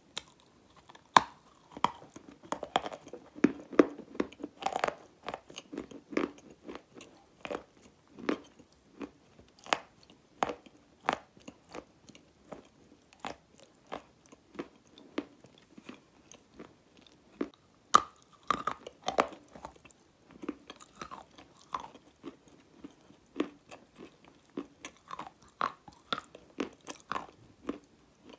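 Close-miked crunching bites into a chunk of grey clay, each bite a sharp crack, with softer grinding chewing in between at an irregular pace. The loudest cracks come about a second in and again about eighteen seconds in.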